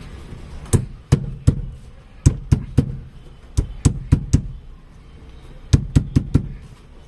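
About fourteen sharp knocks in quick groups of two to four: a new gear knob being knocked down onto the car's gear lever to seat it.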